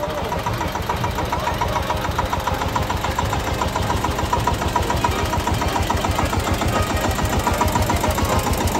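Vintage tractor engine running at low revs as it drives past close by, a rapid, even beat that grows slightly louder.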